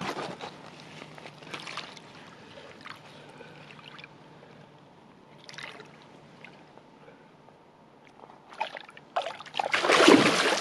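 Lake water sloshing and splashing at the bank's edge as a landed carp is returned. It is quiet at first, with a louder burst of splashing near the end.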